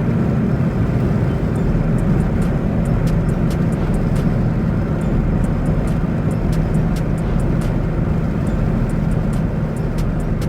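Steady low engine and cabin hum of a Dodge Charger V6, with faint scattered ticks.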